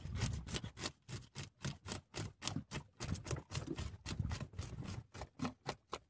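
A fish being scaled by hand: quick, even scraping strokes against the scales, about four or five a second.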